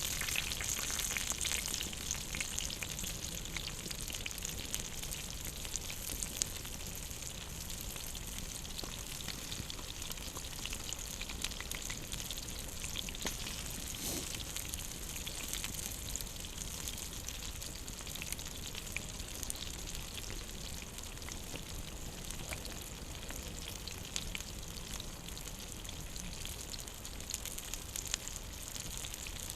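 Food frying over an open campfire: a steady sizzling hiss dotted with fine crackles, a little louder in the first couple of seconds.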